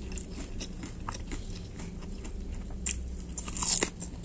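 Close-up chewing of crispy fried tofu: a run of small crunches and crackles, with a louder crunch about three and a half seconds in.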